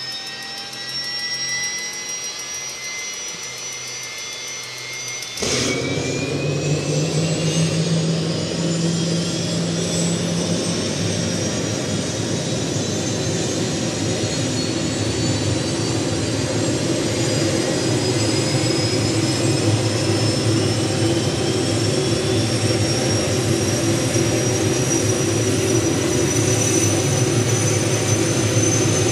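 Hughes helicopter's engine being started cold: a rising whine as it spools up, then about five seconds in it catches with a sudden jump to a loud running sound. It keeps running up, its whine climbing slowly.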